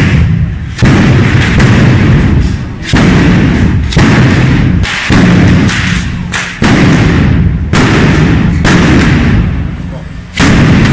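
A batteria of firecrackers going off in a dense, near-continuous barrage of very loud bangs. A fresh wave of blasts starts about every one to two seconds, each dying back into a rumble before the next.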